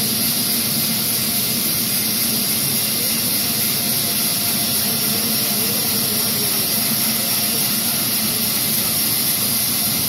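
Sawmill's large vertical band saw running steadily: an even hum under a strong, unbroken high-pitched hiss.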